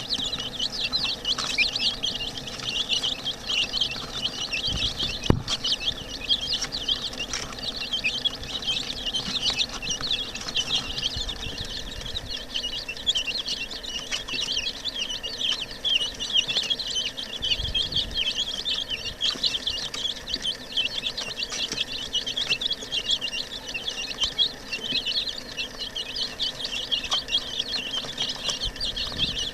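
A crowd of young chicks peeping continuously, many high chirps overlapping, with a single sharp knock about five seconds in.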